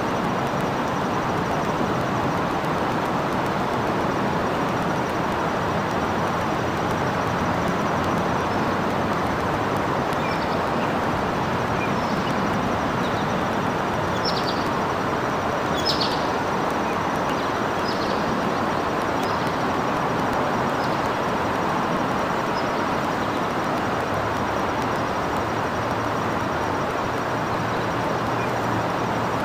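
Steady roar of distant road traffic, with a few short, faint high chirps from a bird around the middle.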